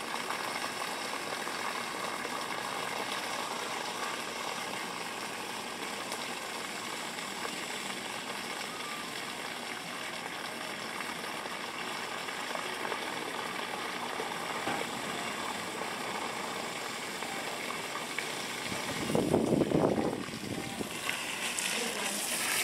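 Steady rush of water from a running garden hose, with a brief louder noise about nineteen seconds in.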